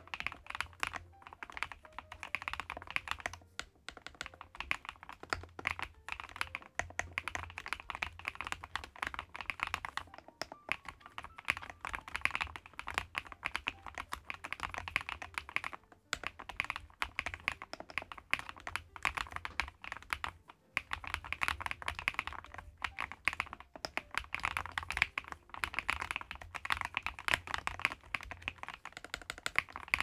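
Fast, continuous typing on an EPOMAKER TH40 40% gasket-mount mechanical keyboard fitted with Wisteria switches: a rapid stream of soft keystroke clacks, with short pauses about ten, sixteen and twenty-one seconds in.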